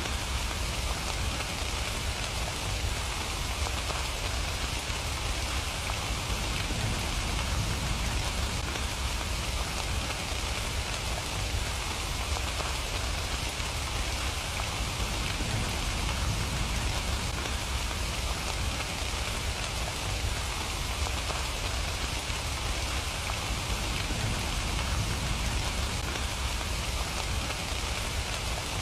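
Steady rain falling on surfaces, an even pattering hiss that doesn't change.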